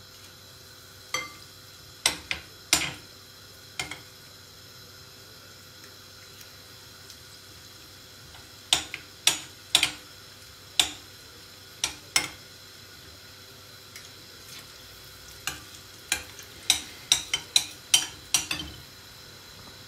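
A metal spoon clinking sharply against a glass mixing bowl and pan rim as fritter batter is scooped, in three bursts of several clinks each. Underneath, the steady low sizzle of zucchini fritters frying in hot oil.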